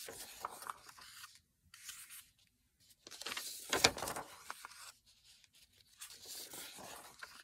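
Printed paper sheets rustling and sliding against each other as a hand shuffles through a stack, in several short bouts. The busiest and loudest bout comes about three to four seconds in and ends in a sharp flap of paper.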